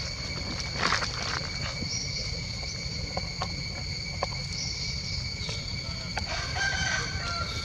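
A rooster crows once near the end, a stepped call lasting about a second, over a steady high drone of insects, with a few scattered soft clicks.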